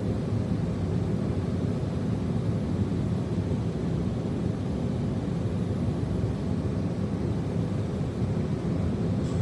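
A steady, unbroken low rumbling noise, with no separate knocks, tones or changes.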